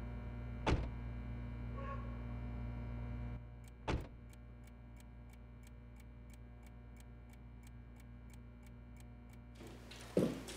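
Quiet indoor room tone with a steady low hum, broken by a sharp click and then a soft knock a few seconds later. After that the hum drops away and faint, steady ticking sets in at about three ticks a second.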